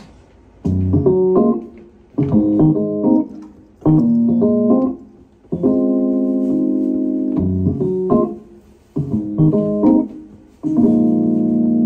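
A keyboard instrument with a sustained, organ-like tone plays chords in short phrases that start abruptly about every second and a half to two seconds, ending on a longer held chord near the end: the instrumental opening of an acoustic pop song.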